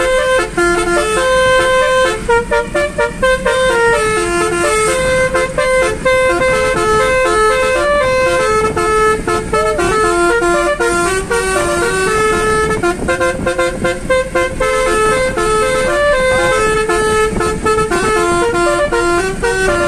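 Basuri musical air horn played from a small keyboard, sounding a tune of short and held notes, one after another, heard from inside the car.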